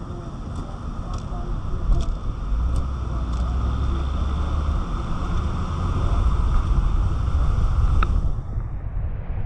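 Car driving on a wet street, heard from a roof-mounted camera: wind buffeting the microphone with a low rumble, over a steady hiss of tyres on wet pavement. It grows louder over the first couple of seconds, with a few sharp ticks scattered through.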